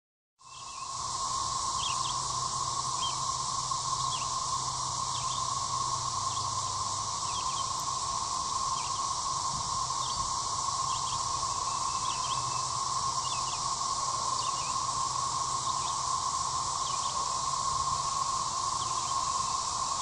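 Chorus of 13-year periodical cicadas, which the uploader takes for Brood XXIII: a steady, unbroken drone at one pitch with a fainter high hiss above it. Short bird chirps come through now and then.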